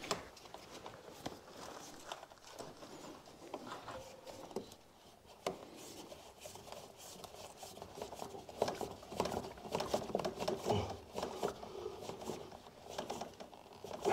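Plastic pipe being worked by hand at a joint: scattered clicks, scrapes and rubbing, busier in the second half.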